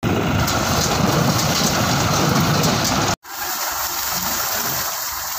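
Tractor-driven field machinery running: a New Holland BC5060 square baler working through sugarcane trash, then a tractor-drawn rotary rake, heard as a loud, steady, noisy mechanical rush. It cuts off abruptly about three seconds in and comes back quieter.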